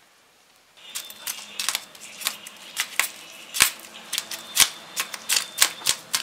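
Big knife blade scraping the thick, strong scales off a large sea bass, scales flicking off. An irregular run of sharp scraping clicks, two or three a second, starting about a second in.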